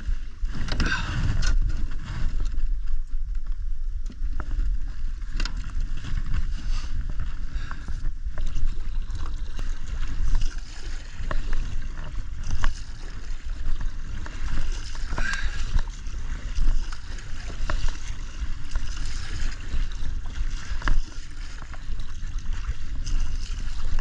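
Kayak paddle strokes splashing in the sea, irregular and at an unhurried pace, over a steady low rumble of wind on the microphone.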